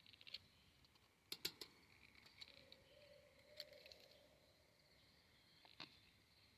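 Near silence with faint, steady insect chirring and a few sharp clicks. A faint low tone is held for about a second and a half around the middle.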